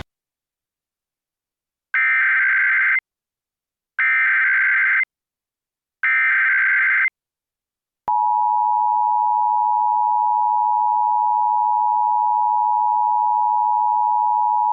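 Emergency Alert System tones opening a Blue Alert: three one-second bursts of warbling SAME digital header data, each about two seconds apart, then the steady two-tone EAS attention signal starting about eight seconds in.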